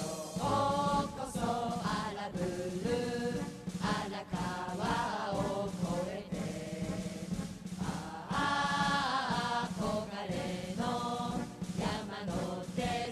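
Background music with voices singing.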